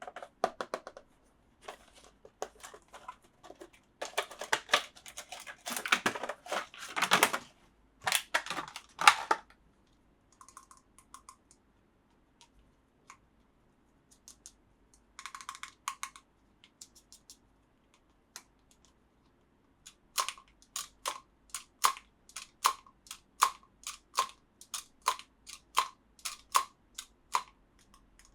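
Hands handling plastic toy parts and packaging: a few seconds of rustling and crinkling, then scattered clicks, and near the end a steady run of sharp plastic clicks, about two a second.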